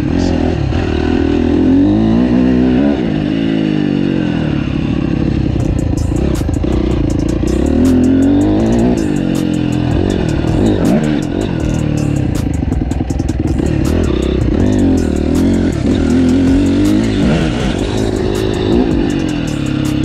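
Honda CRF250 four-stroke dirt bike engine being ridden, its revs rising and falling again and again as the throttle is opened and rolled off. A rapid crackle of sharp clicks sets in about six seconds in.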